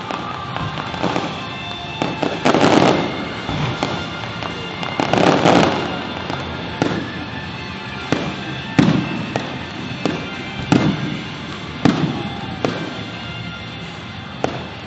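Fireworks going off: sharp booms every second or two, with two longer bursts of dense crackling in the first half, over background music.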